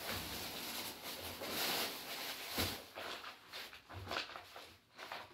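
Rustling and irregular light knocks of someone rummaging through belongings, searching for something.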